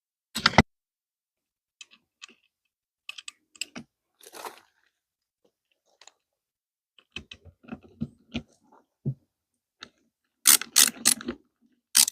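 Clicks, taps and rattles of door lock parts and screws being handled and fitted by hand against the door. Two sharp knocks come right at the start, a patch of light rattling comes past the middle, and loud clattering bursts come near the end.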